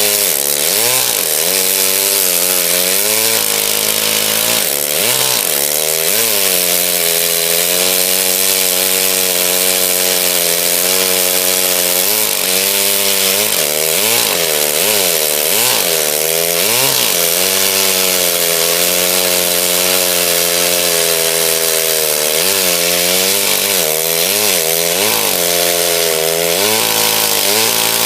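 Stihl Farm Boss two-stroke chainsaw cutting the felling notch into a tree trunk. The engine runs loud, its pitch dipping under the load of the cut and rising again over and over.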